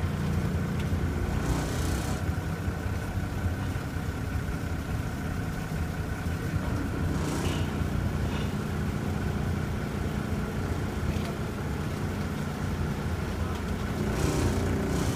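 Sightseeing boat's engine running steadily as the boat cruises, a low hum with a thin high whine over it. A few brief hisses come about two seconds in, around seven seconds in and near the end.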